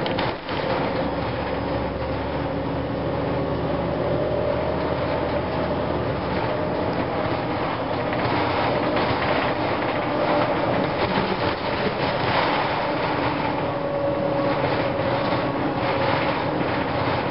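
A 2004 Gillig Phantom transit bus under way, heard from inside: the Cummins ISM diesel and Voith transmission are running, with a faint whining howl from the transmission over road rumble and body rattles. A low drone drops away about six and a half seconds in.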